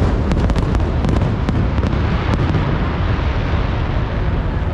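Fireworks going off: a quick run of sharp crackling pops in the first second or so, over a continuous low rumble of bursts.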